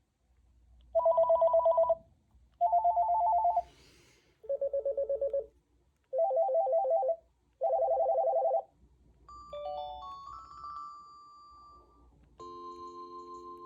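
Panasonic KX-TGD830M cordless phone ringtones: five loud, roughly one-second bursts of fast-warbling electronic ring tones, each at a different pitch. Then, about nine seconds in, a softer melodic ringtone tune, ending in held chime-like notes.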